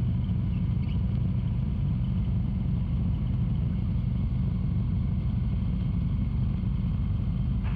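Robinson R22 Beta helicopter's four-cylinder Lycoming piston engine running steadily on the ground, a low even rumble heard from inside the cockpit.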